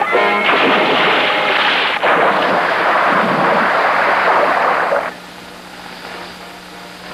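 Cartoon sound effect of a giant robot shorting out: a loud dense crackling, blasting noise for about five seconds, broken briefly about two seconds in, then dropping suddenly to a quieter low steady hum. The robot has blown a fuse after water caused a short circuit.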